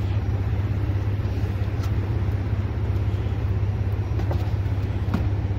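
A vehicle engine idling steadily as a low, even hum, with a few faint clicks from handling gear at the back of the truck.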